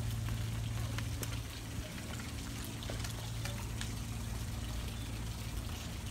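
Steady trickling of running water over a low, steady hum.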